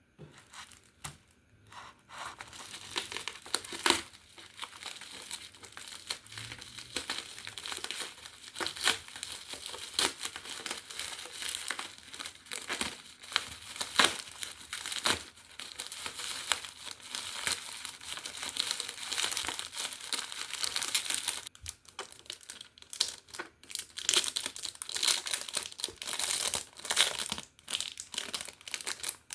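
Packaging of a puzzle toy being crinkled, handled and torn open: a steady crackly rustle with sharp snaps, the loudest about 4, 9 and 14 seconds in, and a brief pause about three quarters of the way through.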